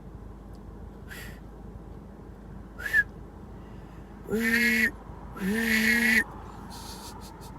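A person making silly vocal noises: a couple of short high chirps, then two held hoot-like calls one after the other near the middle, each steady in pitch and lasting under a second.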